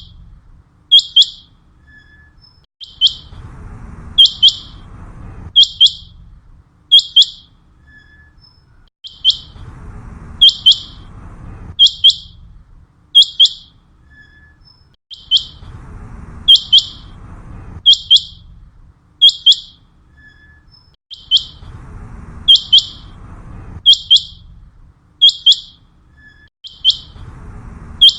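Common quail calling: short, sharp, high whistled notes in quick groups, repeating evenly every few seconds.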